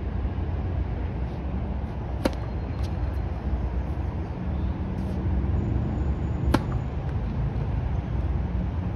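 Sharp pops of tennis balls being hit: one about two seconds in with a fainter one just after, and another about six and a half seconds in. Under them runs a steady low rumble of wind on the microphone.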